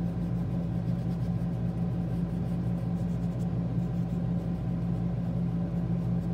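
Steady low hum, even in level throughout, with faint rubbing of an eraser across sketchbook paper.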